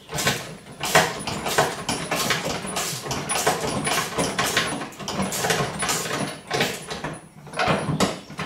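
Rapid, irregular metallic clicking and rattling from bolts, nuts and steel brackets being handled and tightened as a rack is fastened to a tow-behind sprayer.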